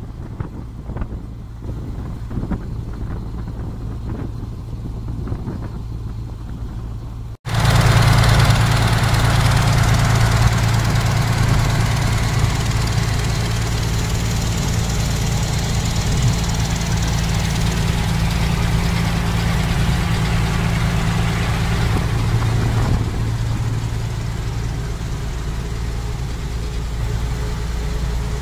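A river ferry's engine running steadily under way, a low drone with a rush of water and wind over it. About seven seconds in, the engine drone jumps suddenly much louder and closer, then holds steady.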